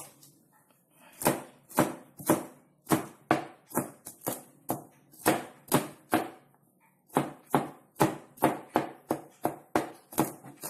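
Kitchen knife chopping garlic and red chilies on a cutting board: sharp, even knocks about three a second, starting about a second in, with a brief pause a little past the middle.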